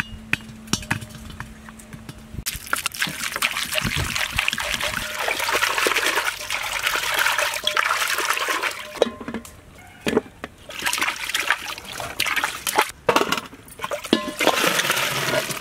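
Water running and splashing into a metal vessel while tomatoes are rubbed clean by hand, with knocks of the vegetables against the metal. It breaks off briefly about ten seconds in, then resumes.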